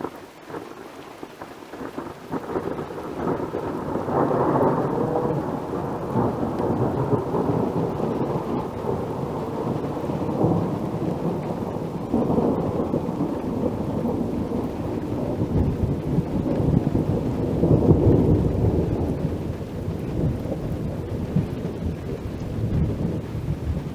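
A long rumble of thunder that builds over the first few seconds, swells again about three-quarters of the way through and keeps going, with rain falling.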